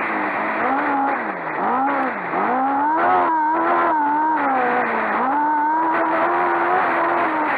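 Speedway sidecar engine at racing speed, heard from on board: its pitch drops sharply and climbs back twice in the first few seconds, holds high, then dips again near the end as the throttle is eased and reopened through the turns.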